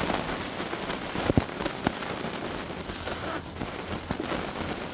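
A few small sharp clicks and taps over a steady hiss, as a turn signal bulb is worked into its socket; the clearest click comes about a second and a half in, another just after.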